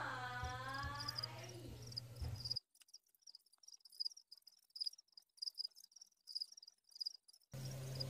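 House crickets (Acheta domesticus) chirping steadily, short high chirps about three a second. A faint falling, gliding tone with a low hum sounds during the first two and a half seconds.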